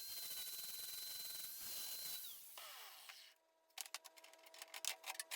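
A small high-speed power tool runs with a steady high whine, then winds down and stops a little over two seconds in. Near the end comes a run of irregular sharp clicks and crackles.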